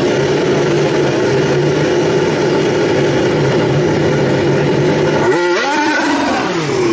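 Mercedes Formula 1 car's turbocharged 1.6-litre V6 held at high revs as the car spins doughnuts. About five seconds in, the revs jump sharply and then fall away over about a second and a half.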